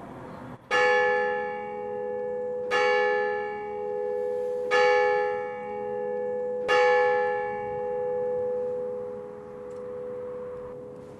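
Church bell striking the hour, played back through the sound installation in an old wooden bell tower: four strokes about two seconds apart, each a sharp clang that rings on, the low tone lingering after the last stroke.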